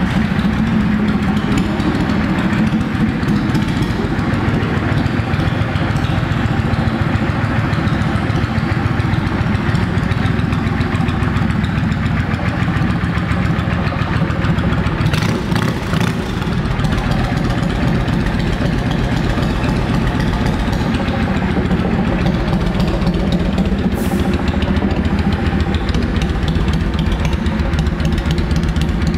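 2007 Yamaha V Star 650 Classic's air-cooled V-twin idling steadily through aftermarket shorty exhaust pipes.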